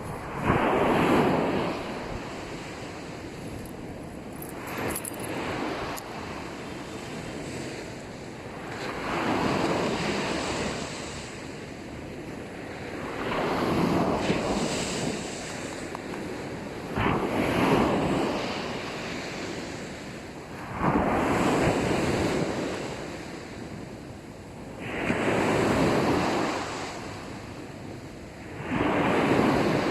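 Small sea waves breaking and washing up on a sandy beach, surging and falling back in a slow, regular rhythm about every four seconds.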